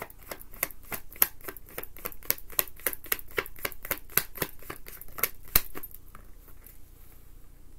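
Tarot deck being shuffled by hand: a quick run of cards tapping and clicking against each other, about four clicks a second, stopping about six seconds in.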